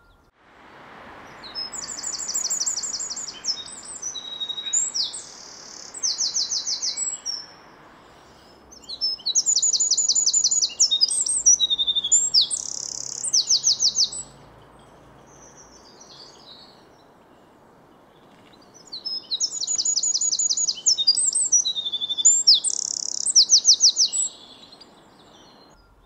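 Wren singing: three loud songs a few seconds apart, each a fast run of high trills and rapid notes tumbling one into the next.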